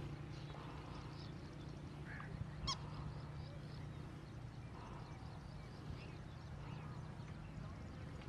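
Faint outdoor ambience: a steady low hum with scattered short bird calls, one sharper call about two and a half seconds in.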